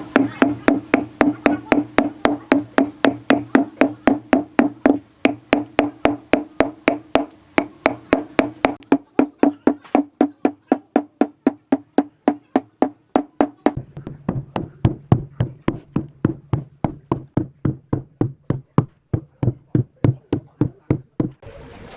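Steady, rapid blows on wood, about three a second, each with a short ringing tone. The ring drops to a lower pitch about two-thirds of the way through.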